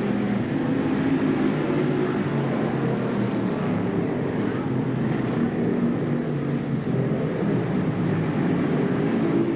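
A pack of dirt-track stock cars racing, several V8 engines running hard at once, their pitch rising and falling as the cars go around the oval.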